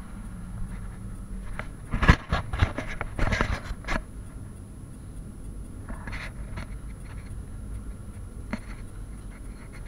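Irregular scraping and rustling, densest and loudest about two to four seconds in, with a few fainter scrapes later, over a low steady rumble.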